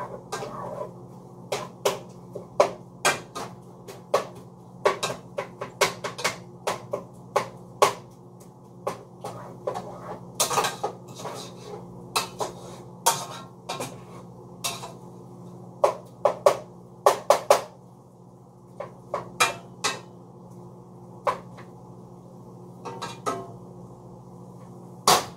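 A spoon knocking and scraping against a cooking pot as meat is stirred while it browns: irregular sharp clinks, about one or two a second, over a steady low hum.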